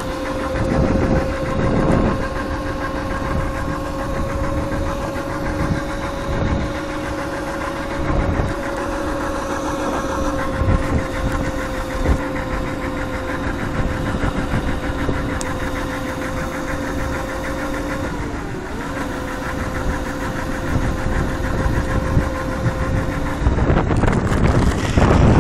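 Mini moto (pocket bike) engine running under way at a steady high whine, its revs dipping briefly and picking back up about three-quarters of the way through. Near the end the engine note gives way to loud rumbling noise.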